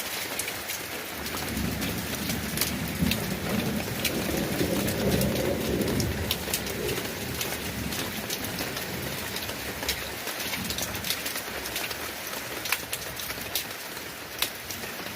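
Steady rain falling, with many individual drops ticking sharply on a hard surface. A low rumble swells during the first half and fades out by about the middle.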